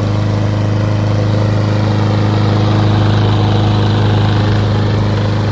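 Walk-behind lawn mower engine running steadily at a constant speed.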